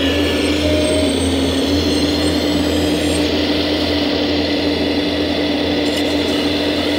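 Electric hydraulic pump of a 1:14-scale RC hydraulic excavator running with a steady whine over a low hum, its pitch stepping up slightly about two seconds in.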